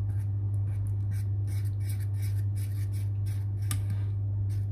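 Metal spoon scraping around a stainless steel saucepan as a thick caramel mixture of butter and condensed milk is stirred continuously, about three scrapes a second, over a steady low hum.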